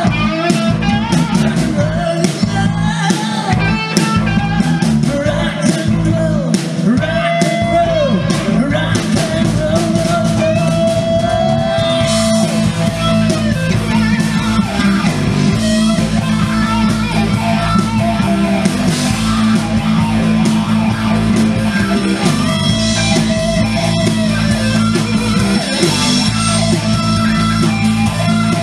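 Live rock band playing through a PA: singing over electric guitar and drums for roughly the first twelve seconds, then an instrumental passage with the electric guitar to the fore.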